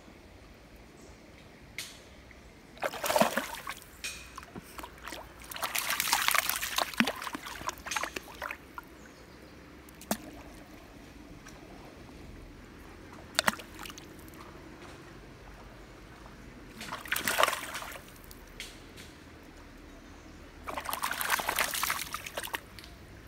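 A small Japanese Chin dog wading through a shallow, stony river, its legs splashing and sloshing the water in four loud bursts, one of them lasting a couple of seconds. Between them a faint trickle of shallow running water and a couple of sharp clicks.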